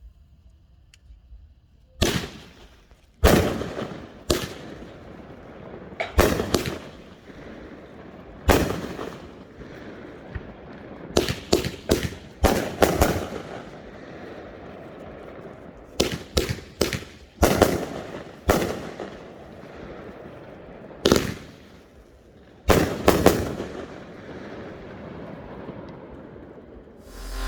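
A 12-shot, 200-gram firework cake (Smoking Alien 'Squealer') firing. Sharp reports go off singly and in quick clusters of two to four, with a hiss lingering between them; the first shot comes about two seconds in.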